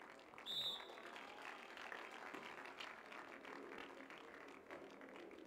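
Faint crowd and court ambience at a beach volleyball match, with scattered light clicks and a brief high whistle about half a second in.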